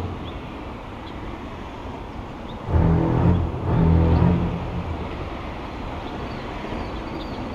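Steady road traffic noise, with a motor vehicle passing about three seconds in: its engine note swells and fades over about two seconds.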